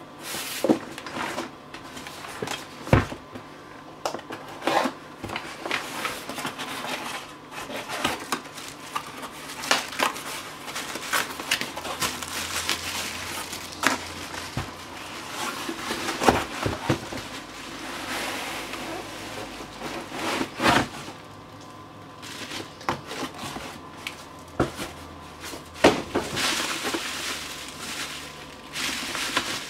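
A cardboard shipping box being cut open with a knife and handled, with scattered knocks, scrapes and tearing of cardboard and tape. Near the end comes a stretch of steady crinkling as the bubble-wrapped contents are pulled out.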